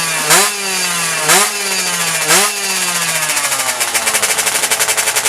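Two-stroke underbone drag bike engine, tuned up to 116cc, being blipped: three quick revs about a second apart, each pitch jumping up and sinking back, then settling to a fast, even idle.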